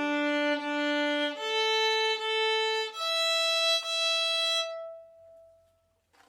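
Violin open strings bowed one after another, rising in steps: D, then A, then E, each for about a second and a half. The E is held and then left to ring and fade away, dying out about six seconds in.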